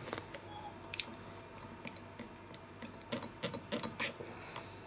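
Irregular light clicks and taps from hands handling fly-tying tools and thread at the vise.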